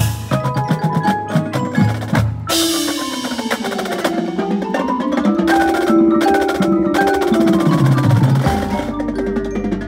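Marching percussion ensemble playing: front-ensemble marimbas and mallet keyboards with the drumline. Sharp rhythmic strikes come first, then from about two and a half seconds in there are repeated descending mallet runs over a ringing wash. Near the end it settles onto a low held tone.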